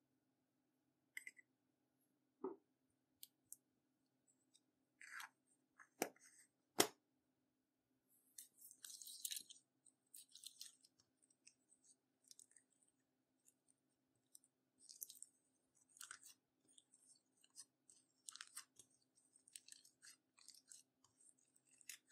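Clear slime being worked by hand, giving soft, sticky crackles and small pops in scattered bursts from about eight seconds in. It is preceded by a few sharp separate clicks.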